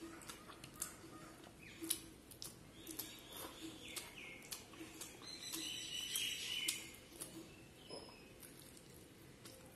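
Close-miked eating sounds: chewing and lip smacking with many sharp, wet mouth clicks, and fingers squishing through soft, curry-soaked mutton fat on the plate.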